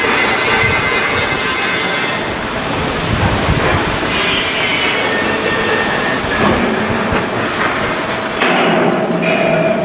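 Loud metalworking noise from ship construction work: dense machine clatter and hiss with high metallic squealing, changing abruptly several times.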